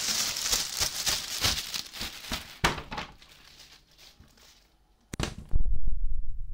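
Clear plastic bag crinkling and rustling as rubber boots are handled out of it, with a sharp knock about two and a half seconds in. From about five and a half seconds in, a loud, low, throbbing rumble takes over.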